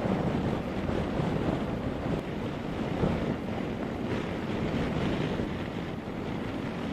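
Wind rushing over an HJC IS-16 full-face helmet and buffeting its chin-mounted camera microphone while riding a motorcycle: a dense, steady rush that steps up in level at the start.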